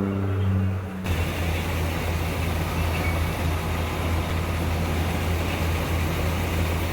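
Engine of field harvesting machinery running steadily. About a second in, the sound changes abruptly from a pitched engine note to a lower, steady drone with mechanical noise on top.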